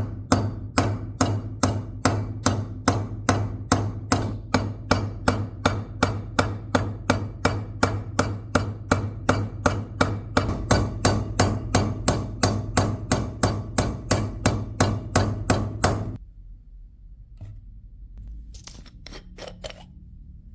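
Evenly paced hammer blows on metal, about three a second, over a steady low hum; the striking and the hum stop abruptly near the end.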